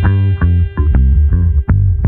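Recorded band music: bass guitar and guitar playing a rhythmic figure of short, punchy low notes, about three a second, under a held higher tone.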